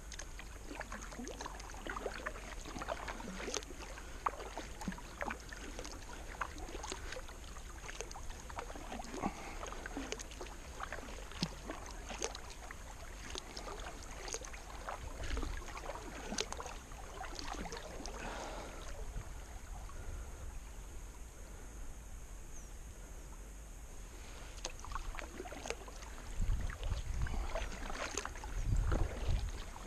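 Kayak paddling: the paddle blades dip into the water stroke after stroke with irregular small splashes and drips. Low rumbling buffets come in near the end.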